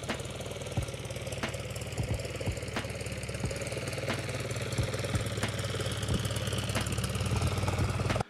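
Datsun 510's engine idling after a cold start, a steady running note with a regular light tick about every two-thirds of a second.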